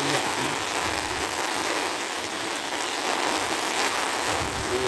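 Heavy rain pouring steadily, a constant hiss of rain hitting the wet road.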